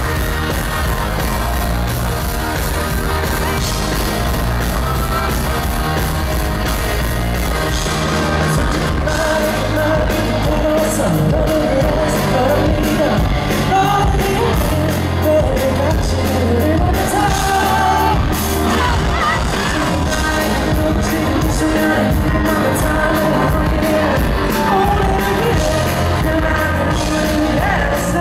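Live pop-rock band playing in a concert hall, heard from the audience, with a male voice singing the melody from about eight seconds in.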